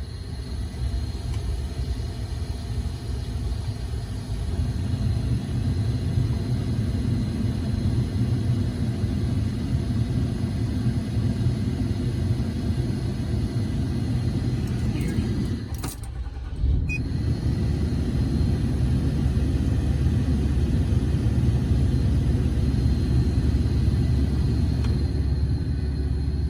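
Truck HVAC blower motor running on its top fan speed, a steady rushing of air from the dash vents. It builds over the first few seconds, dips briefly with a click about sixteen seconds in, then runs on. The motor is failing: it struggles and cuts out, which the owner puts down to worn brushes.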